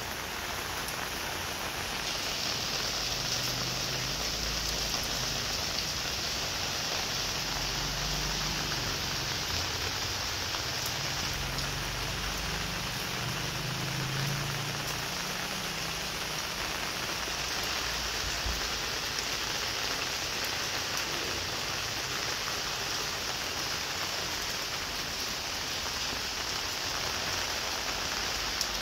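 Steady rain falling on wet tiled paving and puddles, a constant even hiss.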